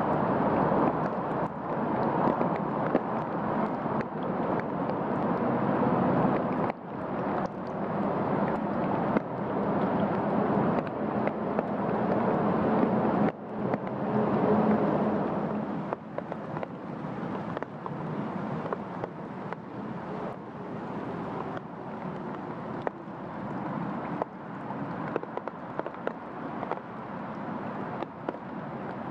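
Steady rain falling on leaves, a gravel path and a puddle: a constant hiss with scattered sharper drop taps. It eases a little about halfway through.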